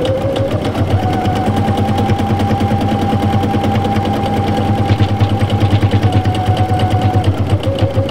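Domestic sewing machine running steadily at speed, the needle clattering in a rapid even rhythm with the motor's whine beneath, as it topstitches a knit neckband with a narrow stretch zigzag stitch.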